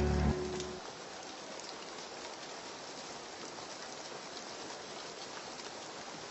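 Light rain falling steadily, with faint scattered drop ticks. The end of a slowed, reverb-heavy song dies away in the first second.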